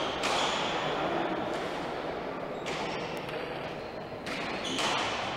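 Pelota ball smacking against the players' implements and the walls and glass of a trinquete court during a rally, several sharp strikes one to one and a half seconds apart, each ringing in the hall's echo over a steady background hubbub.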